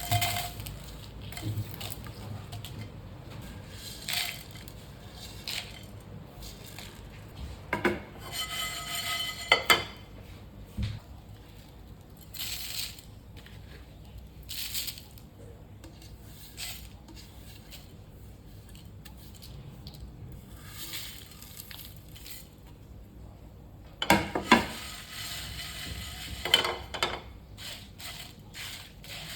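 Kitchen prep clatter: utensils and dishes clinking and knocking now and then, with a cluster of ringing metal clinks about eight to ten seconds in and a busy run of knocks near the end.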